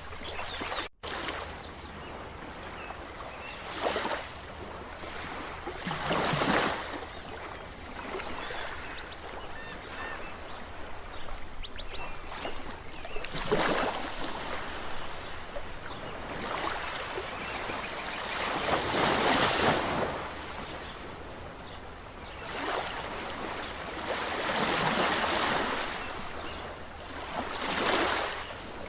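Ocean surf: waves break and wash ashore in loud swells every few seconds over a steady hiss of water.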